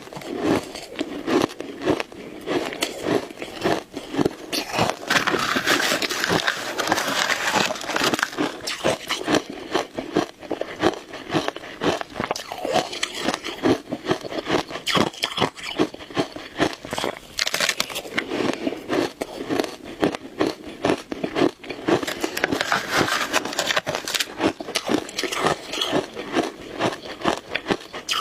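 A person chewing a mouthful of shaved ice, a steady run of quick crackly crunches.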